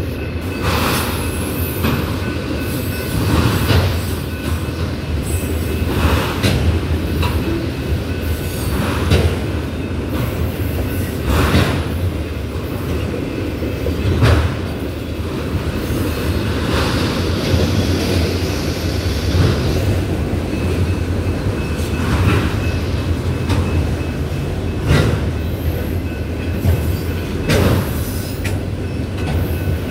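Empty autorack freight cars rolling past: a steady rumble of steel wheels on rail, with a clack every couple of seconds as each truck crosses a rail joint, and a thin, steady wheel squeal.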